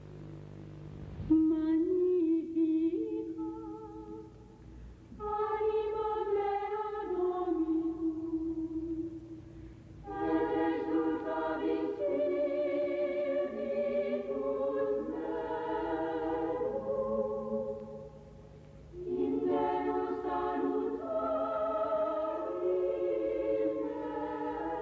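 A choir singing slowly in phrases with short pauses between them, starting about a second in. The first lines are thinner and the harmony grows fuller from about ten seconds in, all over a low steady hum.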